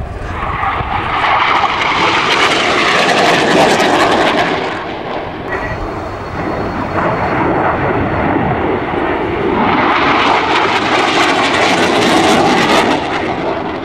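SEPECAT Jaguar jet's twin Adour turbofan engines heard as the jet passes and manoeuvres in a display. The jet noise swells loud, dips in the middle, swells loud again, and begins to fade near the end.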